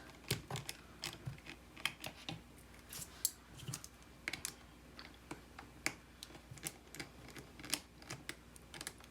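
Irregular small clicks and taps, several a second, of a tiny screwdriver, screws and parts being handled during iPod disassembly.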